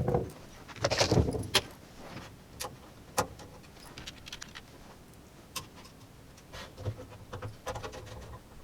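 Scattered light clicks, taps and a short clatter of small metal computer parts being handled: an SSD heatsink being pressed down onto its thermal pad and fitted in place. The loudest clatter comes about a second in, with single sharp clicks after it.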